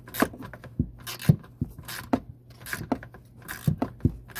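Ratchet wrench on a swivel extension clicking through repeated short strokes, about one a second, as it works loose the hidden washer-bottle bracket bolt.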